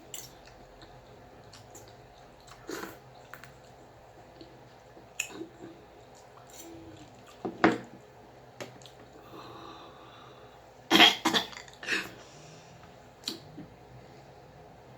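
Eating sounds: chewing with scattered short clicks and smacks, the loudest cluster about eleven seconds in.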